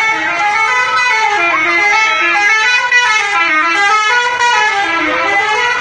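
Bus telolet horn, a multi-tone musical horn, playing a tune of several notes sounding together that step up and down in pitch.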